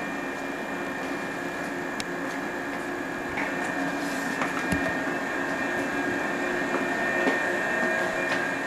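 Steady electrical hum with a thin high whine from a JR West 221 series electric train standing at the platform with its equipment running, with a few light clicks and knocks.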